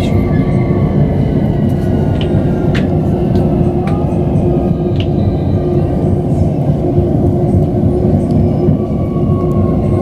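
Ride noise inside a Gautrain carriage, a Bombardier Electrostar electric train: a steady low rumble of the wheels on the rails with an even hum, and a few faint clicks above it.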